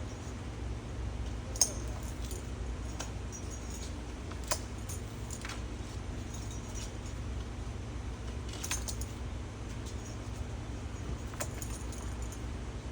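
A few scattered short metallic clinks, like keys jangling, over a steady low rumble.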